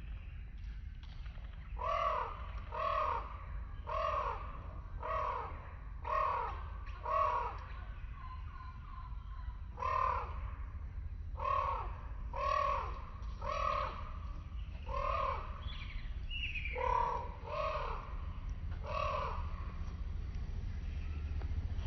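A bird calling over and over, short arched calls about one a second in three runs broken by brief pauses, over a steady low rumble.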